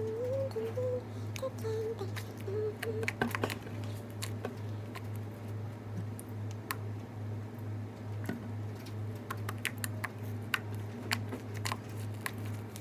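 Sticky fluffy slime being kneaded and pulled apart by hand, giving scattered small clicks and pops, over a low hum that pulses a few times a second.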